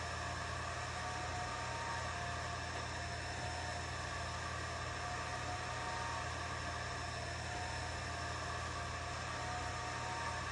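Atomstack A10 Pro 50 W diode laser engraver running while engraving a tile: a steady fan whir and hum, with a faint motor whine that steps between pitches every second or two as the head moves back and forth.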